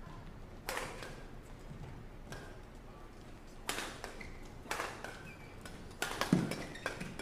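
Badminton rally: sharp smacks of rackets hitting a feather shuttlecock, spaced about one to three seconds apart, with a heavier thud near the end.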